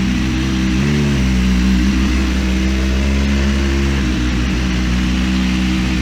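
BMW S1000RR inline-four engine running steadily under way, with a brief rise and fall in revs about a second in.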